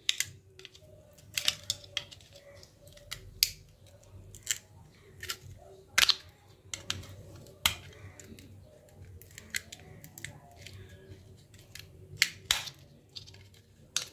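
Sharp, irregular plastic clicks and snaps from the disassembled Nokia 1209 handset's housing, frame and circuit board being handled and worked apart, about one click a second.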